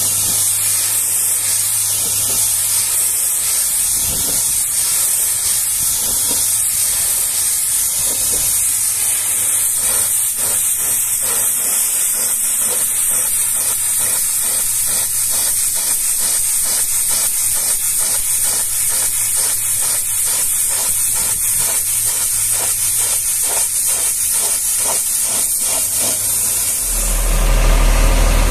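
High-pressure washer spraying water against a steel tanker trailer: a steady, strong hiss over a low hum. Near the end the spray stops and a truck engine is heard idling.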